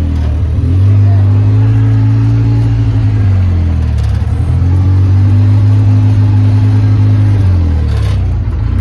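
Polaris RZR side-by-side's engine running under way, its pitch stepping up about half a second in, dropping off around three and a half seconds, then rising again and easing off near the end.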